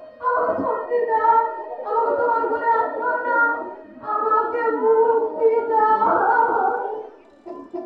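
Unaccompanied singing, held notes in three phrases with short breaks about two and four seconds in, dying away near the end.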